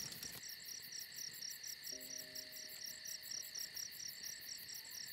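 Crickets chirping in a fast, even pulse of about seven chirps a second over a steady high trill, faint throughout.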